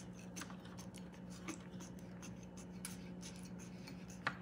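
Faint scratching and light ticks of hands and a metal utensil working marinade into raw turkey skin, with one sharper tick near the end, over a steady low hum.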